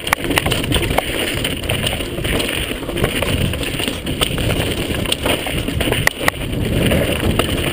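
Mountain bike rattling over a rocky trail at speed, with frequent sharp knocks and clicks, under a steady rush of wind noise on the microphone.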